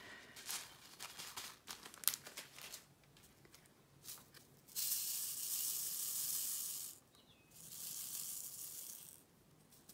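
Square resin diamond-painting drills clicking as they are tipped into a plastic diamond tray, scattered light ticks in the first few seconds, then two stretches of steady rattling hiss about halfway through and near the end as the tray is shaken to spread the drills out.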